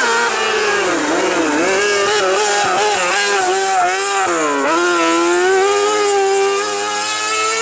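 A kart-cross race buggy's motorcycle engine revving hard. Its pitch drops and climbs back several times, most deeply about halfway through, then holds high and steady near the end.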